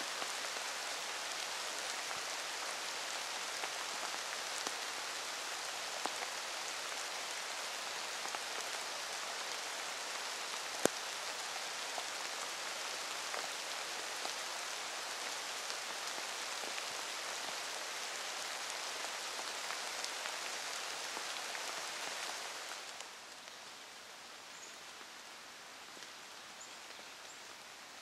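Steady rain falling on the forest floor, with scattered light ticks and one sharp click about eleven seconds in. Near the end it drops to a quieter, even hiss with a few faint high chirps.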